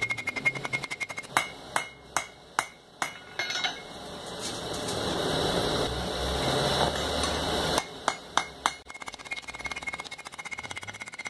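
Hand hammer forging a red-hot steel bar to a point on an anvil: quick light blows with a steady high ring from the anvil, then about five single heavy strikes, each ringing out. A rushing noise builds for a few seconds in the middle while the hammering stops, then a few strikes and quick light hammering start again near the end.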